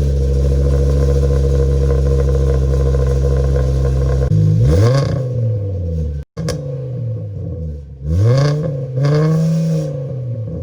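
Car engine idling steadily through a broken aftermarket muffler, then revved several times, each rev rising and falling in pitch. The muffler is loose and rattles inside.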